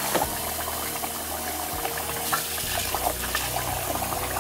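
Tap water running into a metal pot of jasmine rice in a sink while hands swirl and rub the grains to rinse off the starch and dust, with small splashes throughout.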